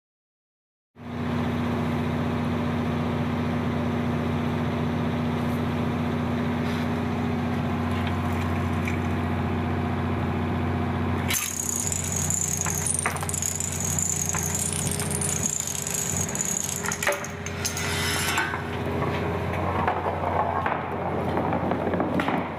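A steady low hum, then from about halfway on, clicking, knocking and rattling of a Rube Goldberg chain-reaction machine's parts set in motion.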